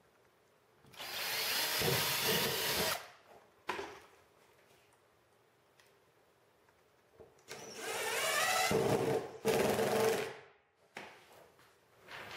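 DeWalt cordless drill driving coarse-thread drywall screws into the thick rim of a plastic 55-gallon drum, in two runs of about two seconds each with pauses between. In the second run the motor pitch rises as it speeds up.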